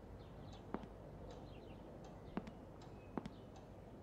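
Quiet room tone with faint, distant bird chirps and a few soft clicks.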